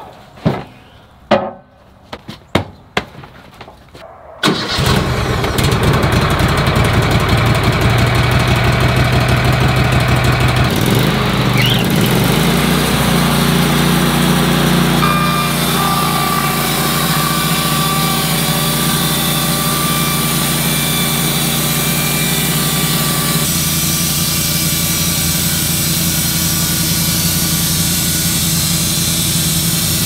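A few sharp knocks of a mallet driving stacked boards into line on a sawmill bed, then the Wood-Mizer LT15 sawmill's engine starts about four seconds in. It speeds up around eleven seconds in and runs steadily as the band saw edges the whole stack of boards in one pass.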